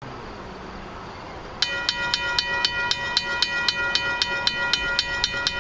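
Railway grade crossing bell starting about a second and a half in and ringing at about four strikes a second, each strike leaving a steady metallic ring: the crossing warning signals activating for an approaching train.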